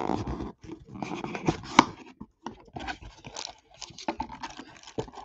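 Hands rummaging in a cardboard shipping box, the cardboard and the packaging inside scraping and rustling, with a sharp knock a little under two seconds in.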